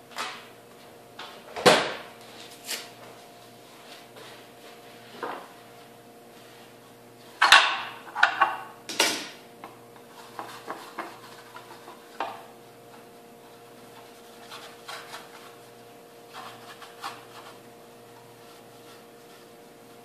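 Scattered knocks and clatters as the black plastic rotor of a stripped-down tabletop centrifuge is handled and held over the motor shaft. The loudest knocks come about two seconds in and in a cluster about halfway through, over a faint steady hum.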